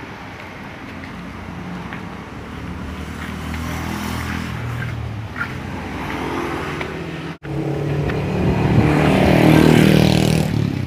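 Motorbike traffic passing on the road: engine noise builds steadily, cuts out for an instant a little past halfway, and is loudest near the end as a vehicle passes close.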